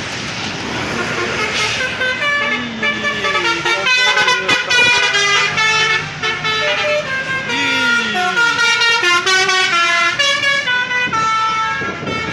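Basuri telolet musical horn on a passing tour bus, playing a tune of stepped notes one after another, over the rush of the bus going by near the start.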